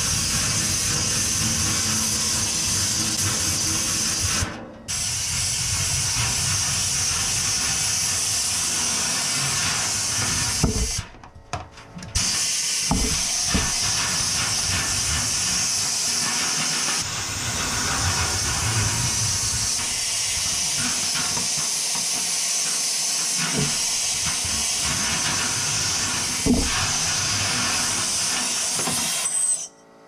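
Compressed air at 100 PSI hissing steadily from a homemade blow-gun nozzle, blasting dust out of a gas water heater. It cuts off briefly about four seconds in and again for about a second around eleven seconds.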